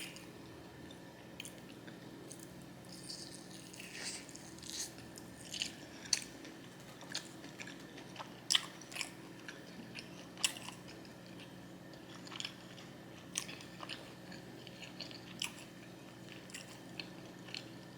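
A person chewing a fried chicken and fries meal close to the microphone: irregular soft mouth clicks and crunches, a few a second, over a faint steady hum.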